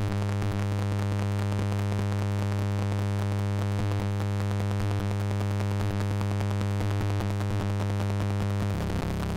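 Live electronic drone played from a laptop: a steady low hum with a stack of higher held tones above it. Near the end it turns into a rougher, noisier rumble.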